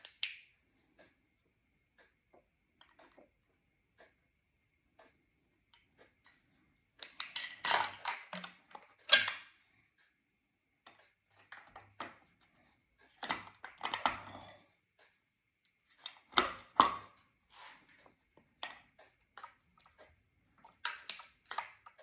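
Scattered metal clicks and clunks of a distributor being handled and lowered into an engine block, its shaft and housing knocking against the block as it is seated, in short clusters with near-quiet gaps between.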